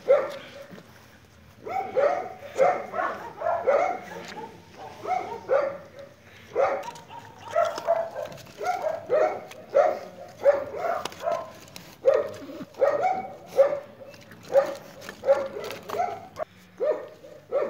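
French bulldog puppies barking in a string of short, high-pitched yaps, one to three a second, with a couple of short pauses.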